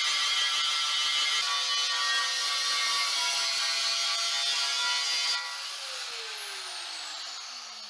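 Angle grinder with its abrasive disc grinding the paint off the steel top of a compressor tank: a steady high whine over the grinding noise of the disc on the metal. About five seconds in it is switched off and the motor winds down, its pitch falling.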